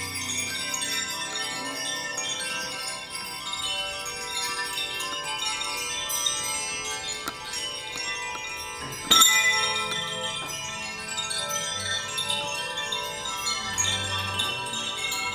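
Bells and chimes ringing together as a dense wash of overlapping tones, with one sharp, louder strike about nine seconds in that rings on.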